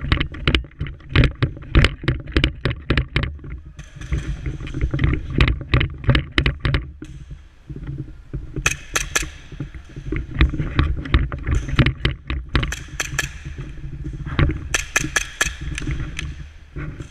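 Steady rumble of wind or handling on a body-worn camera microphone, with many sharp, irregular clicks and knocks that come in dense clusters.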